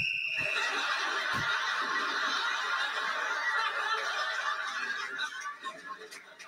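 Studio audience laughing on a television comedy's soundtrack: a dense wave of crowd laughter that starts abruptly and dies away near the end.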